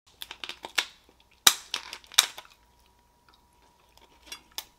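Kitchen shears cutting through a cooked lobster's shell: a run of sharp cracks and snips, the two loudest about a second and a half and two seconds in, with a few softer snips near the end.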